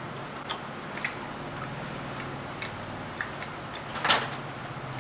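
Close-miked eating sounds: crisp clicks and crackles as a deep-fried, bread-coated cheese ball is torn apart and chewed, the loudest crackle about four seconds in. A low steady hum runs underneath.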